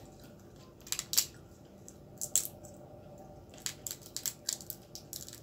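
Cooked crab shell cracking and crunching as it is broken apart by hand: a string of sharp, irregular crackles, loudest about a second in.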